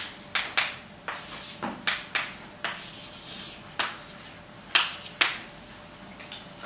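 Chalk tapping and scraping on a blackboard as an equation is written: about a dozen sharp, irregularly spaced taps, the loudest pair about five seconds in.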